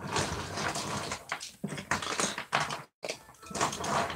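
Small plastic toys being handled and rummaged through by hand: a run of irregular clicks, taps and rustles, with a momentary dropout about three seconds in.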